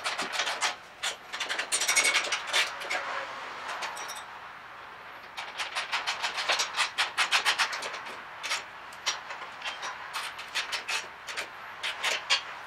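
Socket ratchet clicking in quick runs as towbar mounting bolts are tightened, with a short pause about four seconds in and slower, scattered clicks toward the end.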